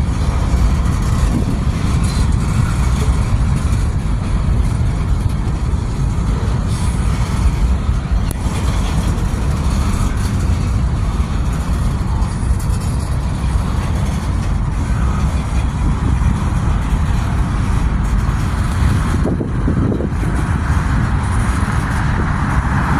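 Freight train boxcars rolling steadily past, a continuous rumble of steel wheels on rail.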